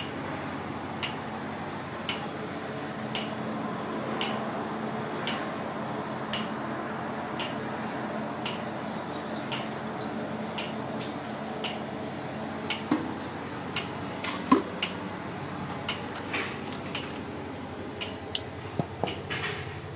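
Steady hum of milk tank refrigeration machinery running, with a sharp tick repeating about once a second. A few louder knocks come in the last several seconds.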